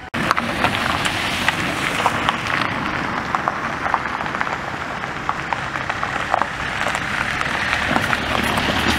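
Tyres crunching and crackling over loose gravel as a BMW X5 SUV drives slowly past, with a dense run of small stone pops and its engine running low underneath.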